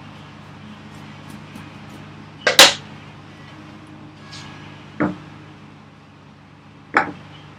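A few short, sharp knocks of tools and wood handled on a workbench during a flatness check after hand planing. The loudest knock comes about two and a half seconds in, with softer ones near five and seven seconds, over a steady low hum.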